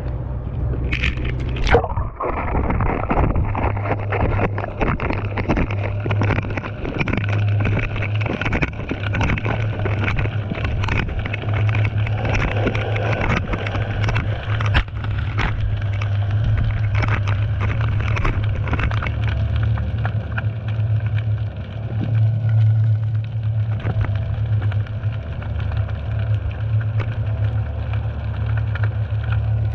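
Underwater sound through a submerged GoPro: a dense, irregular crackle of clicks and pops over a steady low hum. The camera plunges under the surface about two seconds in, and the sound turns muffled.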